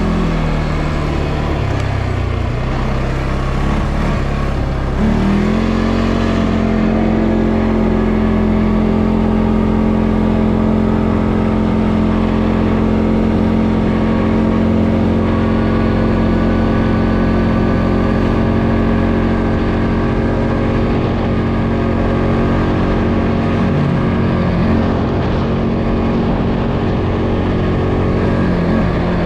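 CFMoto ATV engine running while riding. The revs sag in the first few seconds, climb sharply about five seconds in and then hold steady, with a brief dip shortly before they fall off near the end.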